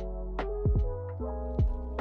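Instrumental lo-fi background music: sustained keyboard chords over a bass line, with a steady programmed drum beat.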